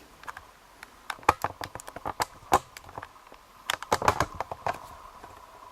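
Irregular light clicks and taps of small metal parts, such as lock pins, being handled and set down.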